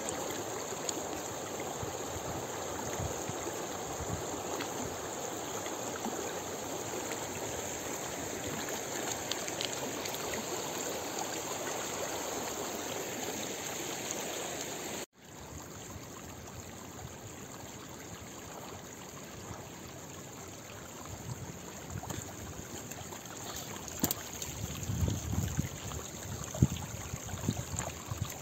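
Mountain stream rushing over rocks, a steady wash of water. About halfway through the sound cuts and the water is quieter, with some low bumps near the end.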